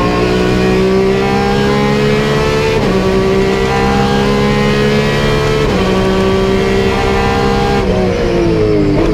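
GT race-car engine sound effect accelerating through the gears, its pitch climbing and then dropping at each upshift about every three seconds. Near the end the pitch steps down in quick downshifts.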